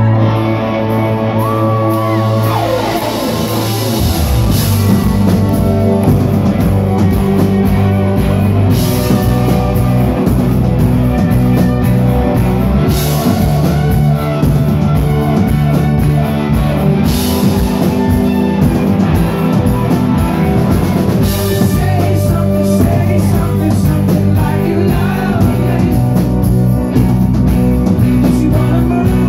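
Live rock band playing loud with electric guitars, drums and bass. It opens on sustained chords, the full drums and bass come in about four seconds in, and cymbal crashes land roughly every four seconds.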